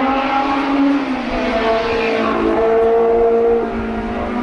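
Formula race car's engine accelerating hard, revving up through the gears. Its pitch drops at a gear change about a second in and again near the end.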